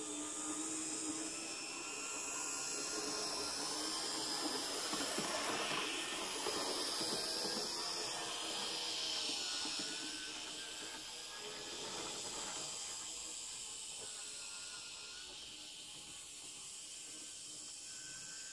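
Z-scale model train running along the track: a high hiss and whine from its tiny motor and wheels that swells over the first few seconds and fades slowly after about ten seconds as it passes.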